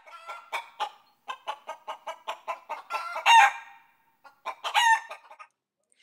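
Chicken sound effect: a rapid run of clucks, about five a second, building to a loud squawk a little over three seconds in, then after a short pause another loud squawk with more clucks near the end.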